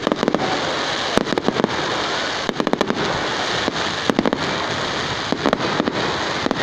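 Fireworks going off: clusters of sharp crackling bangs, a fresh burst about every second, over a steady hiss.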